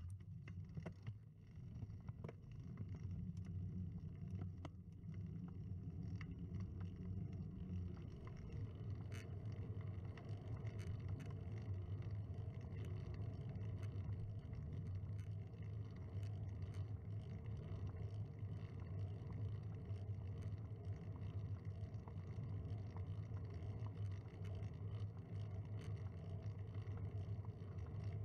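Steady low rumble of tyre, road and wind noise picked up by a camera mounted on a moving bicycle, with scattered small clicks and rattles.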